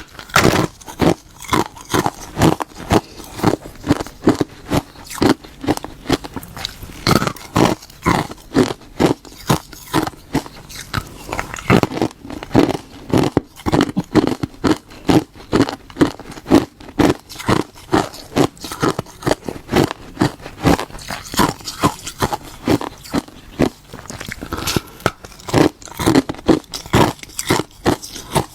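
Hard ice being bitten and chewed, a steady run of sharp, brittle crunches, about two or three a second.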